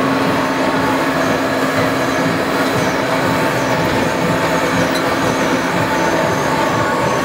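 Mini-plane amusement ride car running along its elevated rail track, heard on board: a steady rolling rumble with a constant hum through it.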